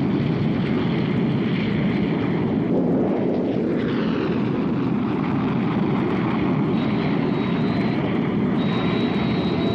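Chengdu J-7 fighters' jet engines at takeoff: a steady loud rush of jet noise, with a whine falling in pitch about three to four seconds in and a thin high whine near the end.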